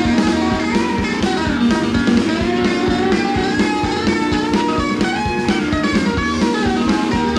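Live rock and roll band playing an instrumental break: electric guitar picking quick runs of notes over a steady drum beat.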